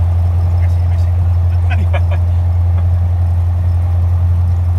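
Piper Warrior's four-cylinder Lycoming piston engine and propeller running at a steady, even low drone, heard from inside the cabin.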